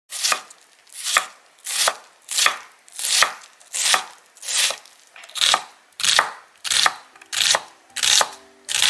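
Chef's knife chopping onion on a wooden cutting board: steady, evenly paced strokes about every 0.7 seconds, each a short slice ending in a knock on the board. Faint background music comes in near the end.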